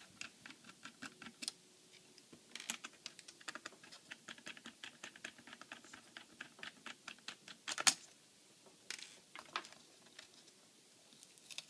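Small screwdriver backing out tiny laptop screws: a run of light, irregular clicks and ticks of metal on screw and plastic, with one sharper click about eight seconds in.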